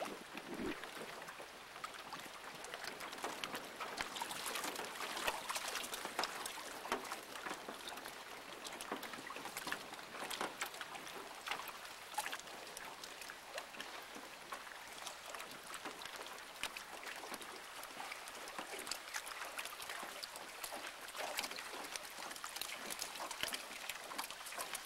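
Choppy, wind-driven water lapping and splashing: a steady hiss broken by many small, irregular splashes.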